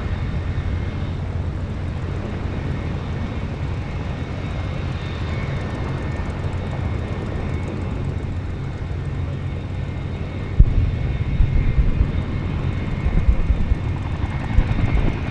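Turbine engine noise: a steady low rumble with a faint high whine. About ten and a half seconds in, the rumble suddenly gets louder and turns gusty.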